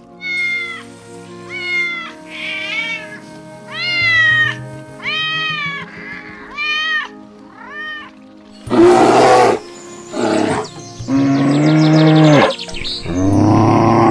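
A domestic cat meowing, about seven short rising-and-falling meows, over steady background music. About nine seconds in, louder, rougher animal calls take over.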